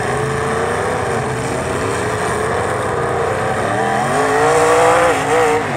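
Demolition derby cars' engines running together, with one revving up, climbing in pitch about four seconds in and dropping back just before the end.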